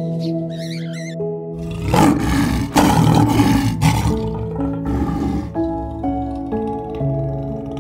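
Lion roaring over soft background music of sustained notes. The roar starts about one and a half seconds in, lasts about four seconds and is the loudest sound.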